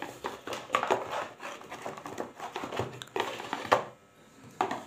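Handling noise from USB and VGA cables being lifted out of a cardboard box: irregular rustling, scraping and clicks of plugs and leads against the cardboard. It is busiest for the first three and a half seconds, then there are two sharper knocks with quieter gaps between them.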